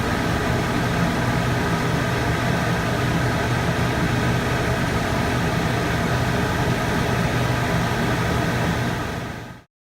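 Steady machine hum with a hiss and no rhythm, fading out quickly near the end.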